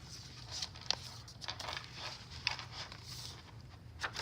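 Paper pages, envelopes and card tags of a handmade junk journal rustling and crinkling as they are handled and turned, with a few sharp taps among the rustles.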